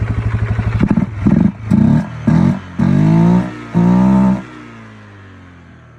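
Four-wheeler (ATV) engine idling, then revved in about six quick throttle blips, the last two held longer, before the engine stops about four and a half seconds in. It is running again on a new fuel pump and fresh gas after a no-start caused by a dead pump and bad gas.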